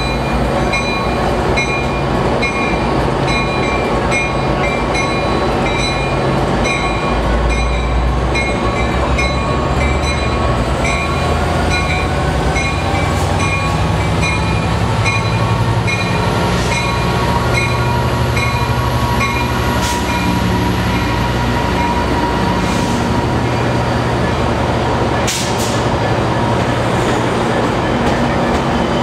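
Amtrak Surfliner's F59PHI diesel locomotive pulling slowly past with its engine running steadily, while its bell rings in even, repeated strokes that stop about two-thirds of the way through. A whine rises in pitch as the train gathers speed, then holds steady. A few sharp knocks come as the coaches roll by.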